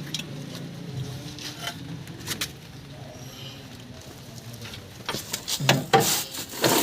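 Scattered clicks and knocks from work on a pickup's suspension arm and its bushings, growing busier and louder in the last two seconds.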